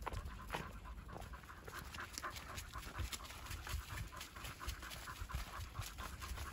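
A dog panting with quick, short breaths while walking.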